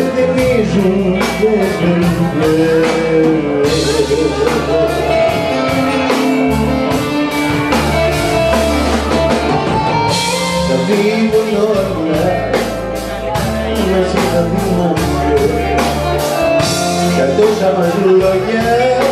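Live folk-rock band: a man singing into a handheld microphone over electric guitar and a drum kit, with cymbal crashes swelling about four, ten and seventeen seconds in.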